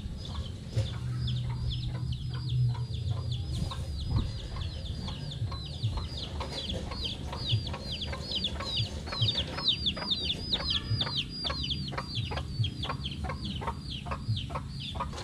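Chicks peeping: a long, even run of high, falling notes, about three a second, with a low rumble of wind on the microphone underneath.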